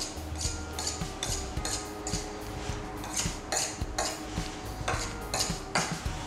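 A small knife scraping along the top edge of a metal tart ring, trimming off excess pastry dough: a quick run of short metallic scrapes, about two or three a second.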